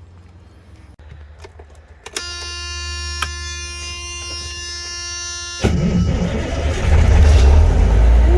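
A truck's warning buzzer sounds steadily for about three and a half seconds over a low rumble, typical of an air-brake truck's low-air-pressure alarm at key-on. About five and a half seconds in, the engine starts and runs, growing louder.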